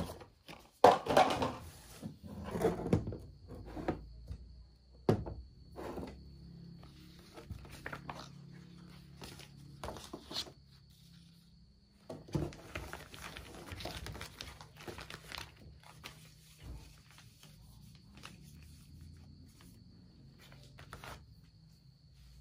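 Plastic skincare bottles and a jar being picked up and set down on a tabletop, with a few sharp knocks, the loudest about a second in, and plastic sheet-mask packets rustling and clicking as they are spread out in the second half.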